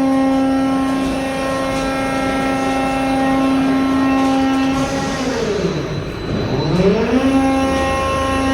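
Hydraulic power unit of a metal scrap baler whining steadily at one pitch. About five seconds in the pitch slides down and then climbs back to its steady level within two seconds.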